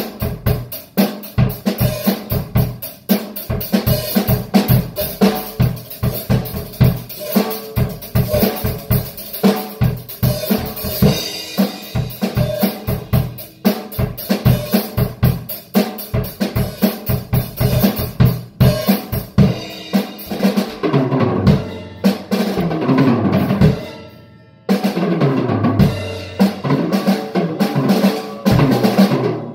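A drum kit played in a fast, busy groove of bass drum, snare and cymbals. After about twenty seconds it turns into rapid fills that run down in pitch, broken by a brief gap.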